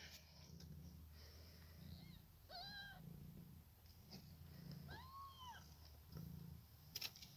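Newborn kittens giving two short, high-pitched mews, about two and a half and five seconds in, with a soft low purr pulsing underneath.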